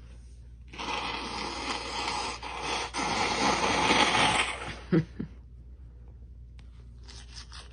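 About four seconds of scratchy rustling noise, then a single short, sharp sneeze about five seconds in, with faint scratching near the end.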